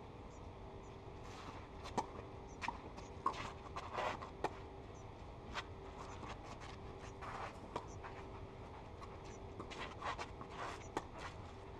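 Tennis rally on a clay court: a string of sharp racket-on-ball knocks at uneven intervals, with players' shoes scuffing on the clay between them.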